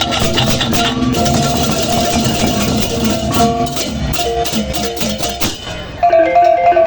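Balinese gamelan music: dense, rapid clashing percussion over ringing tuned metal tones. About six seconds in it changes abruptly to a sparser passage of clear, ringing tuned-metal notes.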